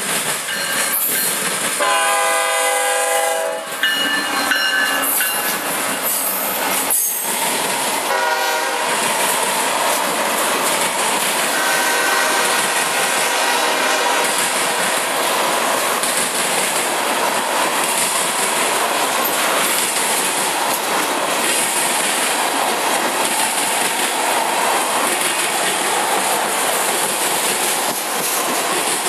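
A CSX diesel freight locomotive sounds its horn in short blasts, the longest about two seconds in and a brief one about eight seconds in, as it passes close by. A long string of tank cars then rolls past with steady wheel and rail noise and clickety-clack over the joints.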